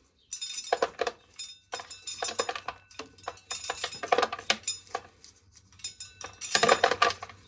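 An ear of dried corn being shelled: the kernels clatter and rattle off the cob in irregular bursts of sharp clicks with short pauses between.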